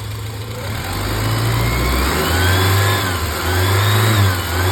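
1987 Dodge Ram 50 engine running just after start-up and being revved several times, its pitch rising and falling. No exhaust-leak ticking is heard: the leak at the air-injection pipe has been sealed with a quarter.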